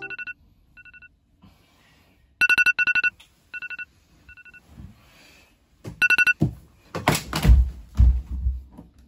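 Electronic alarm beeping in short bursts of rapid pulses, stopping and starting again several times. In the last couple of seconds, bedding rustles and there are a few soft thumps as someone gets out of bed.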